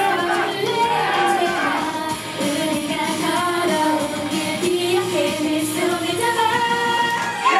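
Pop song with a female voice singing over dense backing music, playing continuously at a loud, steady level.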